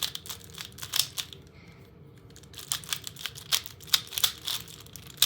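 Valk 3 M magnetic 3x3 speedcube being turned one-handed: quick plastic clicks of the layers snapping into place, a short lull about a second in, then a flurry of turns.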